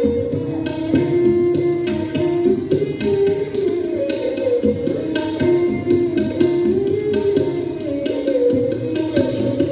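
Dilruba bowed in a slow Raag Kalyan melody, its held notes sliding from pitch to pitch, over tabla keeping a steady teen taal beat.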